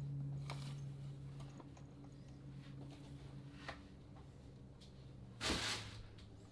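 Small electric motor of a battery-operated Trumpet Monkey toy running with a low, steady hum, with faint clicks from its mechanism. About five and a half seconds in there is a short, loud rush of noise.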